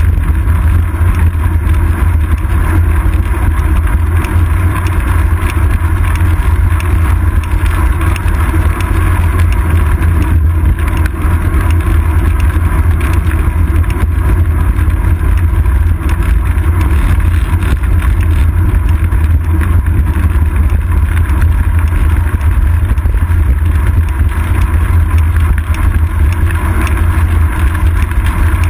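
Steady wind buffeting and road vibration picked up by a seat-post-mounted GoPro Hero 2 on a moving road bike, a loud, low, unbroken rumble.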